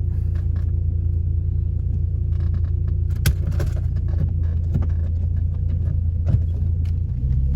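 A car being driven: a steady low engine and road rumble, with scattered clicks and knocks, the sharpest about three seconds in and again near six and a half seconds.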